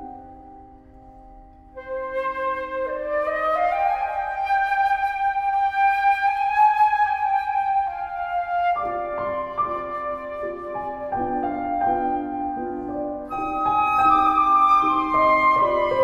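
Flute and piano playing a slow classical piece. A quiet held low chord fades, the flute comes in about two seconds in with a rising phrase and long held notes, and the piano enters underneath with changing chords about halfway through.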